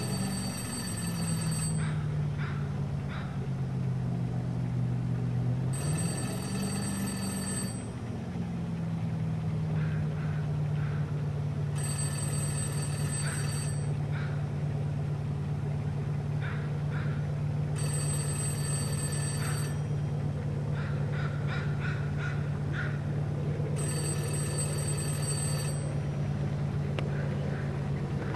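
Payphone ringing: five rings, each about two seconds long, one every six seconds, the North American ring cadence. A steady low engine hum runs underneath, with short chirps between the rings.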